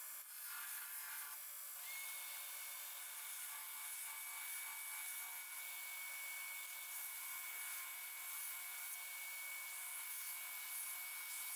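Belt grinder running a fresh low-grit belt, with a pattern-welded steel blade held against it and ground in a steady hiss; a thin high whine sets in about two seconds in.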